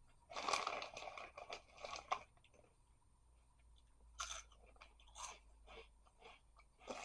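Crunchy Andy Capp's Barbecue Fries being chewed close to the microphone: a run of loud crunches in the first two seconds, then quieter, scattered chewing crunches.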